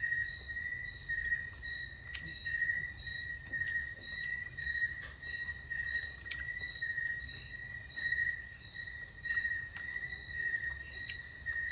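A steady insect call, likely a cricket: a high tone pulsing about twice a second throughout. A few soft clicks are scattered through it over a low background rumble.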